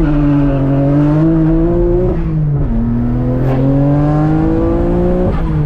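Nissan car's engine heard from inside the cabin, accelerating in gear with two upshifts: the engine note climbs, drops about two seconds in as the next gear is taken, climbs again and drops once more near the end.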